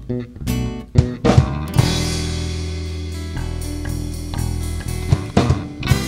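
Rock band playing an instrumental passage live on drum kit, electric and acoustic guitars and electric bass, with no singing. Short chord hits with drum accents, then a held chord rings out for about three seconds before the drum hits start again near the end.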